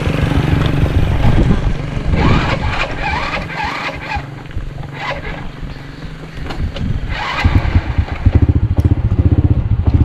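Small motorcycle engine running as it is ridden. About seven and a half seconds in the engine gets louder, with a fast, even beat.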